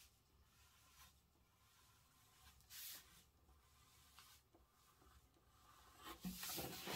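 Pencil scratching faintly across kraft pattern paper while drawing a long curved line, in a few separate strokes, the clearest about three seconds in and again near the end.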